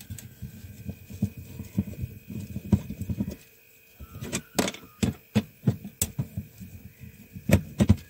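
A screwdriver turning screws in a plastic bracket inside a fridge box: a quick run of soft, low clicks and scrapes as the screw turns, then after a short pause a scattering of sharp clicks.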